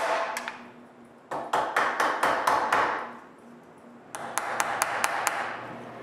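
A mallet striking a wide timber-framing chisel as it cuts into the end of a wooden rafter: two runs of quick, sharp blows, the first about a second in and the second about four seconds in.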